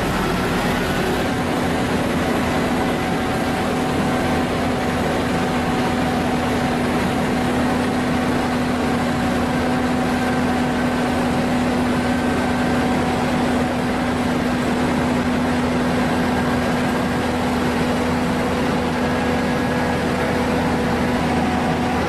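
Diesel engines of asphalt paving machinery running steadily under load, a constant mechanical drone with a steady low hum and no change in speed.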